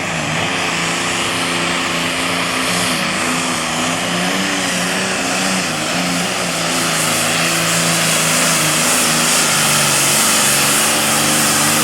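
Super Farm class pulling tractor's turbocharged diesel engine running flat out under load as it drags the weight sled. It is a steady, high-revving drone whose pitch wavers slightly before settling, growing a little louder toward the end.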